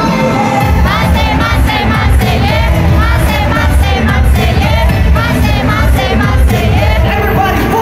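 Live K-pop concert music played loud through an arena sound system, with a heavy steady beat. Singing comes in about a second in, after a brief drop in the bass.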